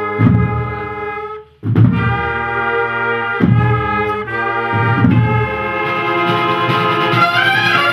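Brass band music: cornets playing long held chords in a processional march, with a short break about a second and a half in, then new chords struck roughly every one and a half seconds and a rising phrase near the end.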